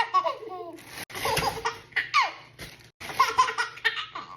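A baby laughing hard in repeated bursts of belly laughs and squeals, set off by a plastic bag being crinkled; rustling noise fills the gaps between the laughs.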